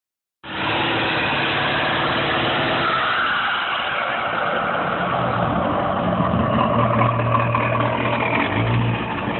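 Ford F-350 pickup's engine running under load while it pulls a stuck SUV out of snow. Its pitch shifts about three seconds in and again in the second half.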